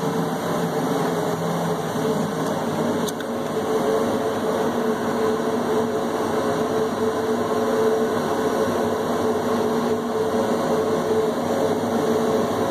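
Steady mechanical hum of running machinery, with a mid-pitched drone that holds constant throughout.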